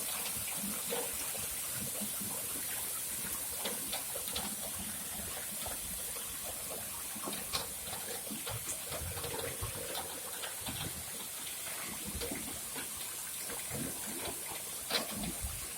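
Rainwater in a downpour splashing and gushing: a steady rush of water with many scattered drips and splashes.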